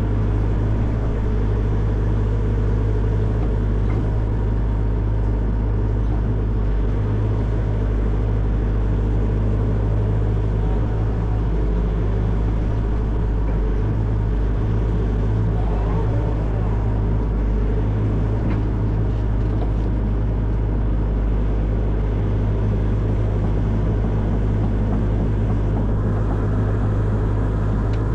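Excavator's diesel engine running steadily with a constant low drone.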